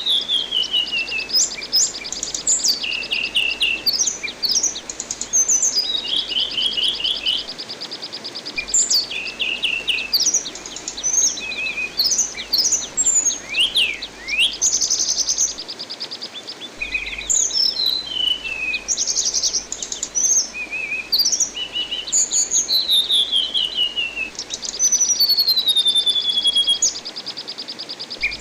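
Anis binbin thrush singing a continuous, varied song of falling whistles, quick sweeping notes and fast rattling trills, over a steady background hiss of running water.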